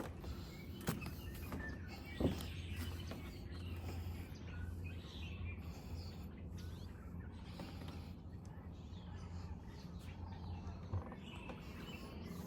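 Small birds chirping and calling in a wetland, scattered and faint, over a steady low hum. A few short knocks come in, the sharpest about two seconds in.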